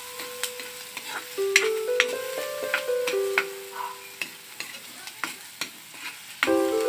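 Garlic sizzling in melted butter in a wok while a metal spatula stirs it, scraping and clicking against the pan at irregular moments. Soft background music with held notes plays underneath.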